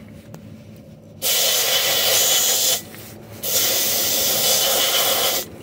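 Compressed air hissing out of a truck tire's valve stem as a dial pressure gauge is pressed onto it, in two loud bursts of about one and a half to two seconds each.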